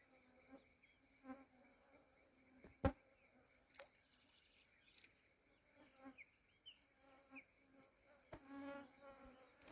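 Faint, steady high-pitched insect chirring in the background, with a single sharp click about three seconds in.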